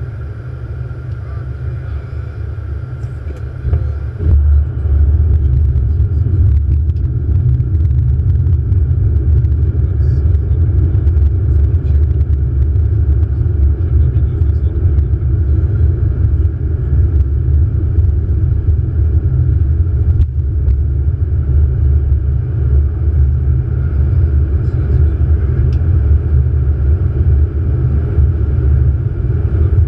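Airbus A380 flight-deck noise on approach: a steady low rumble of airflow and engines that steps up in level about four seconds in and then holds.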